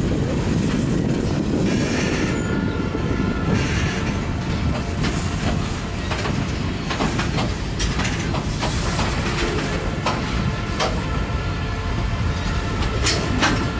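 Freight train of steel gondola cars rolling past: a steady, loud rumble of steel wheels on rail, with irregular sharp clicks and clanks as the wheels pass over rail joints.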